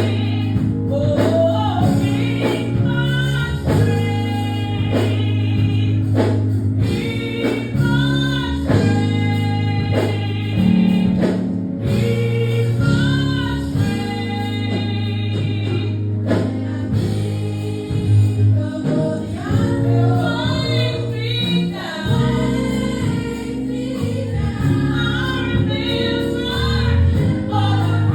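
Live gospel music: a vocal group singing over a band with a steady bass line.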